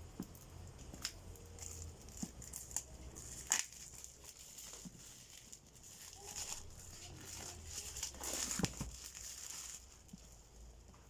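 Packaging handled while unboxing a drone: crinkling and rustling with scattered sharp clicks and taps, the loudest click about three and a half seconds in and a longer rustle near the end.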